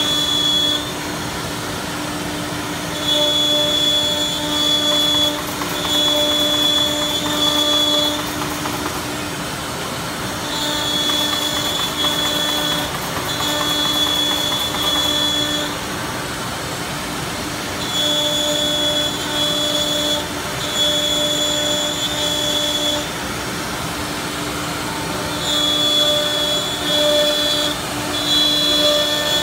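Four-head CNC router running on a wooden panel: a steady low machine hum throughout, with a higher-pitched whine that comes and goes in stretches of about two seconds, mostly in pairs, as the lowered head works the board.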